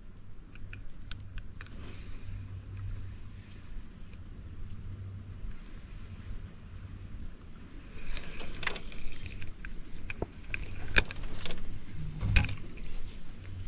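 Spinning reel being cast and then wound in, with clicks and short rattles of the reel from about eight seconds in, louder near the end. A steady low hum underlies the first half and fades out about midway.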